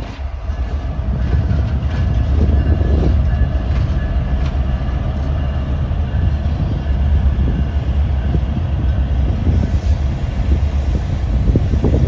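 Two Canadian Pacific diesel-electric locomotives running light and moving away along the track: a steady, deep diesel engine rumble with the wheels rolling on the rails.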